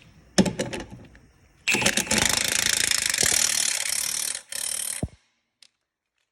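A few metal clicks, then an impact wrench hammering a rear shock absorber bolt tight in one long burst of about three seconds and a short final burst.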